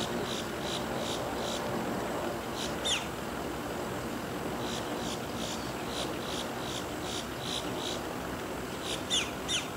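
Runs of short high bird chirps, about three a second, with a sharp falling whistle-note about three seconds in and two more near the end. Beneath them a steady distant drone, the Basler BT-67's turboprop engines as it rolls down the runway.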